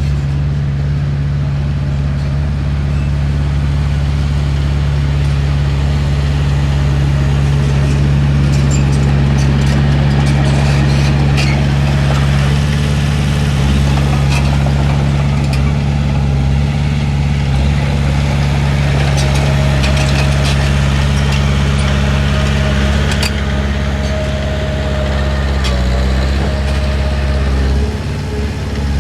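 Komatsu D31P bulldozer's diesel engine running steadily, a low even drone with scattered faint clicks, dipping briefly near the end.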